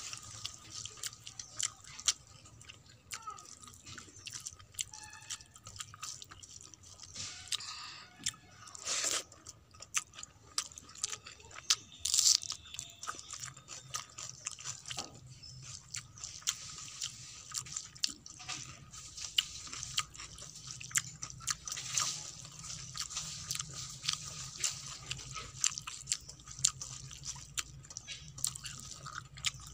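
Fingers squishing and mixing wet, water-soaked rice (panta bhat) on a steel plate, making many small wet clicks and smacks, with close-up chewing mixed in.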